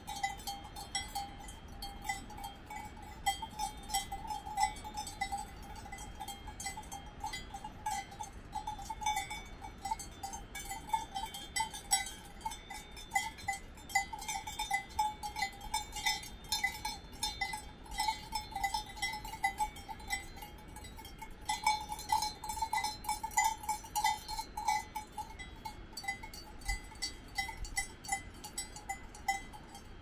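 Cowbells on grazing cows clanking unevenly, several bells ringing at once with no steady rhythm, busiest about three-quarters of the way through.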